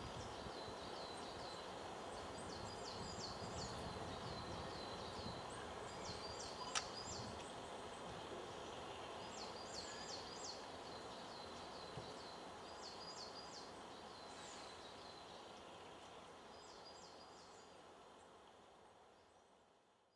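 A small songbird singing short phrases of rapid high notes, repeated every few seconds over a steady background hiss. A single sharp click about a third of the way in, and the whole sound fades out near the end.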